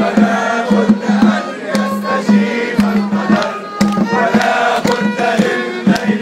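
A crowd singing and chanting together to a violin, with sharp percussive beats scattered through.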